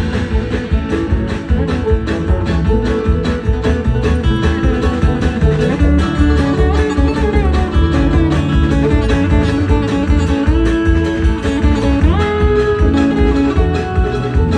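A live string band playing an instrumental break: a lead guitar picks a melody over bass and rhythm guitar, with one note sliding upward about twelve seconds in.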